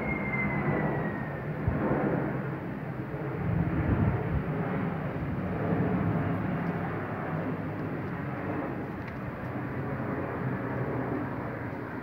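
Rolling thunder from a strong electrical storm: a long, uneven rumble that swells about two and four seconds in, then slowly eases off.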